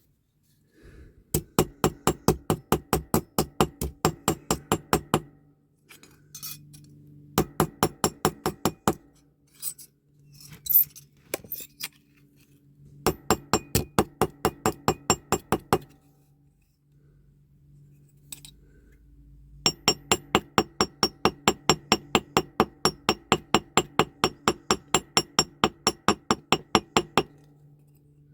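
Rapid, light metallic tapping on the diecast toy's base plate, about six or seven taps a second in four runs of a few seconds each, over a steady low hum.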